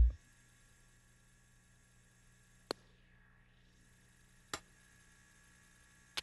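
Faint steady hum, broken by three short, sharp clicks spaced about two seconds apart.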